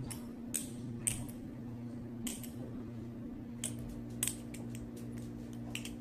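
Butterfly knife (balisong) being spun through finger rolls, its handles and blade clicking and clacking sharply at irregular moments, about six clicks in all. A steady low hum runs underneath.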